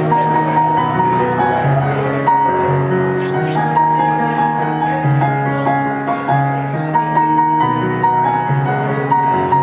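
Piano playing a slow piece, a melody of held notes over sustained bass notes.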